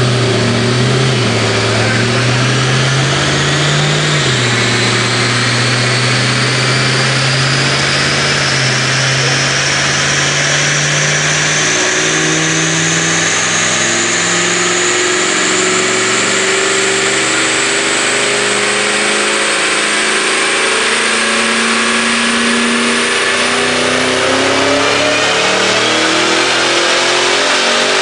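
Supercharged Ford Mustang V8 running under load on a chassis dynamometer, its engine speed climbing slowly and steadily. A high supercharger whine rises in pitch along with the exhaust note.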